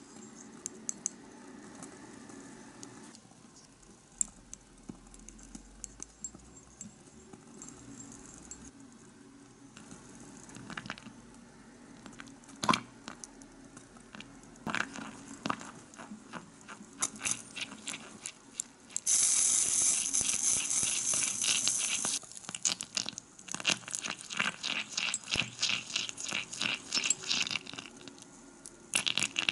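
Small metal spoon stirring sauce in a miniature ceramic saucepan, making quick light clicks and scrapes against the pan that grow faster and busier in the second half. About two-thirds of the way through, a steady hiss runs for about three seconds and is the loudest sound.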